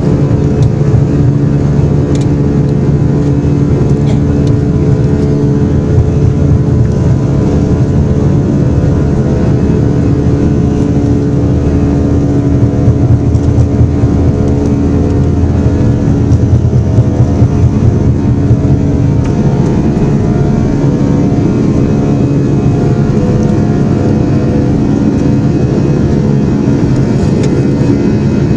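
Aircraft engines running steadily, heard from inside the passenger cabin: a loud, even hum of several tones over a low rumble, swelling slightly partway through without any rise in pitch.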